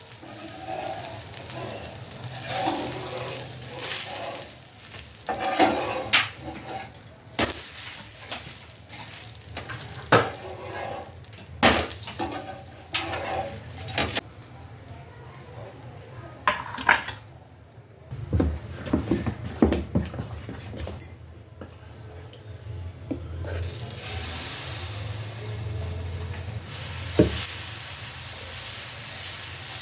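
Home cooking at the stove: food sizzling in a hot pan while a metal utensil repeatedly clinks, knocks and scrapes against the cookware. The sizzling becomes steadier near the end.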